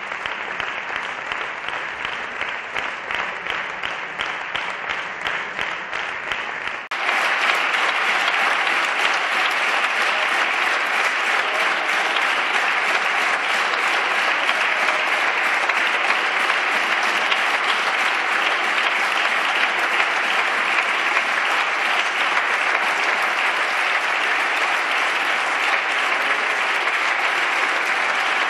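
Sustained applause from a chamber full of parliamentary deputies clapping. About seven seconds in, the sound jumps abruptly to a louder, brighter stretch of the same applause, which then holds steady.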